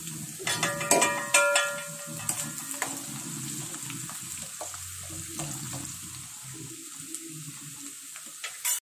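Ginger frying in hot coconut oil with popped mustard seeds in a pan, a steady sizzle. A spoon stirring makes a run of sharp clicks and metallic clinks in the first three seconds, then a few more scattered later on.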